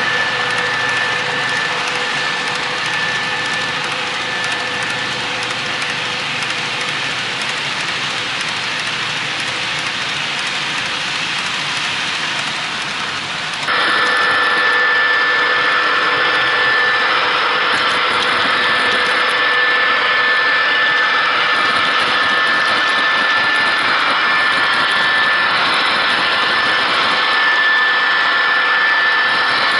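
Model freight train behind an MTH ES44AC locomotive running on track: a steady rolling rumble with a thin, steady whine over it. It gets suddenly louder and closer about 14 seconds in.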